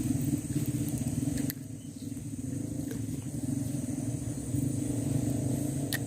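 An engine running steadily with a low rumble that drops in level about a second and a half in. Under it runs a steady high hiss, and there are a couple of sharp clicks.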